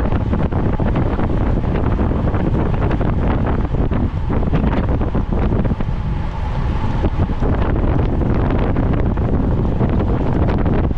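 Wind buffeting the onboard camera's microphone on a road bicycle ridden at racing speed: a loud, steady, rough rushing rumble.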